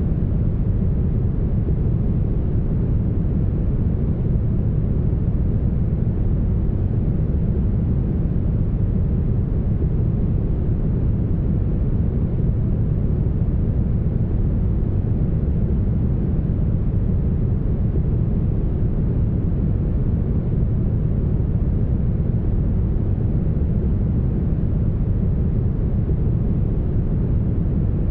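Steady, heavily smoothed brown noise: an even, deep rushing rumble, with most of its weight in the bass and almost no high hiss.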